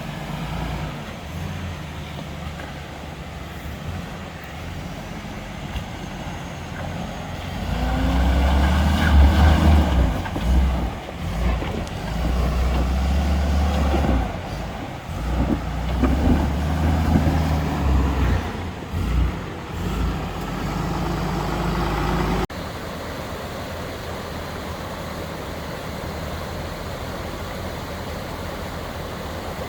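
The FJ80 Land Cruiser's swapped-in 6.0 LS V8 running off-road. The revs rise and fall under load, loudest through the middle stretch, then it cuts suddenly to a steady, quieter drone about two-thirds of the way through.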